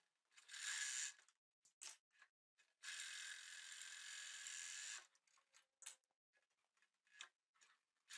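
Overlock sewing machine (serger) running in short spurts as it edges a piece of knit fabric. A brief run near the start is followed by a steady run of about two seconds in the middle, with faint clicks between, and it starts again at the very end.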